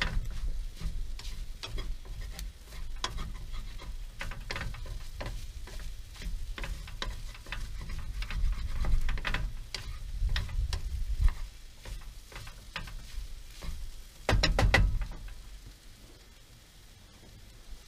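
Wooden spatula scraping and knocking in a nonstick frying pan as food sizzles on a camp stove. A burst of louder knocks comes near the end, then the stirring stops and it goes quieter.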